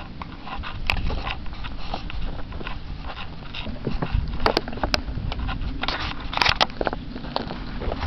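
Footsteps crunching over dry cut pine branches, twigs and sandy ground, with irregular snapping and crackling clicks over a low rumble.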